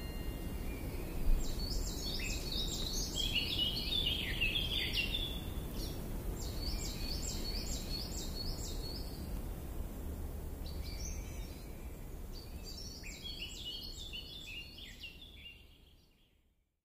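Birds chirping in quick, repeated phrases of high notes, in four spells, over steady low background noise; it all fades out about a second before the end.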